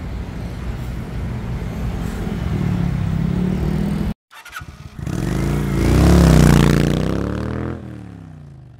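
Engine-like rumble that runs steadily, then cuts off abruptly about four seconds in. After a short gap, a louder revving engine sound swells with its pitch wavering up and down, then fades away.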